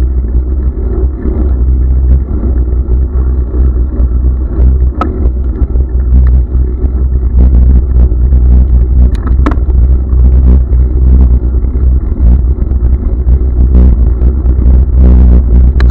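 Loud, steady low rumble of wind and road vibration on a camera riding on a moving bicycle, with a few sharp clicks or rattles about five seconds in and again around nine seconds.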